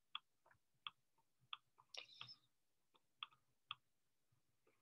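Faint, scattered clicks of a computer pointing device, about two a second, as handwriting strokes are drawn on an on-screen whiteboard. A short, soft scrape-like noise comes about two seconds in.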